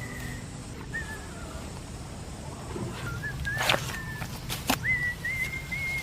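High, thin whistled notes: a short one about a second in, a few more after three seconds, and a longer, almost steady note held for about a second near the end. A few sharp clicks fall in the middle.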